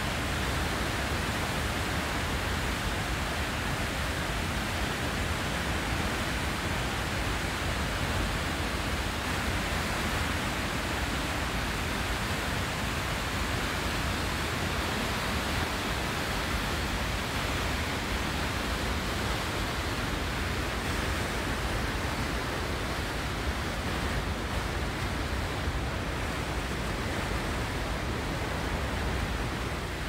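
A large river waterfall running at high, muddy flow, with churning rapids below it: a steady, unbroken rush of falling and tumbling water.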